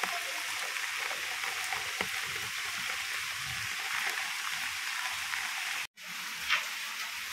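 Steady hiss of heavy rain falling on garden plants and wet paving, broken by a brief dropout about six seconds in.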